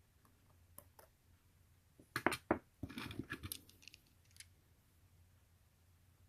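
Tweezers and tiny metal watch screws being handled: two light clicks about a second in, then a quick run of metallic clicking and rattling from about two to three and a half seconds in, and one more click later, over a faint low hum.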